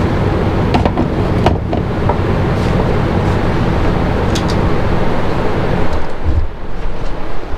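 Wood lathe running while a turning tool works the spinning wood: a steady noisy hiss over a low motor hum, with a few sharp clicks. The hiss thins out about six seconds in.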